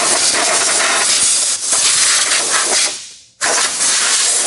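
Compressed-air blow gun hissing steadily as it blasts dust and loose debris off a tractor engine. The blast trails off about three seconds in, then cuts back in sharply a moment later.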